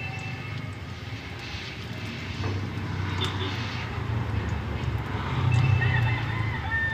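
Low engine rumble that swells about five and a half seconds in, with a short cat meow near the end.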